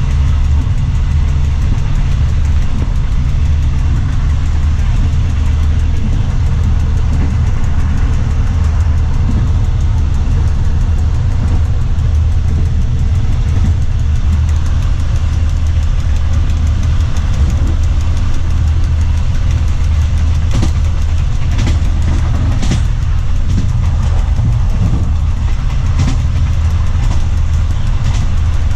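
Diesel train running at speed, heard on board: a steady low engine drone with running noise, and scattered sharp clicks and knocks in the last third.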